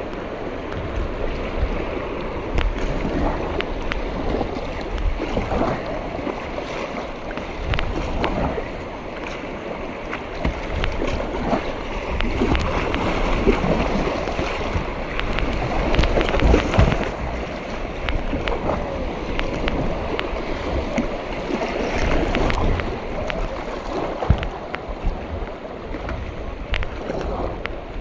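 Whitewater kayak moving through river rapids: water rushing and splashing around the hull, with paddle blades dipping and splashing on each stroke and a louder surge about halfway through.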